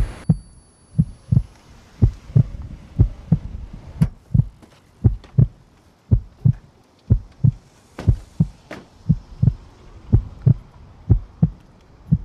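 Heartbeat sound effect: low double thumps, lub-dub, about once a second at a steady pace.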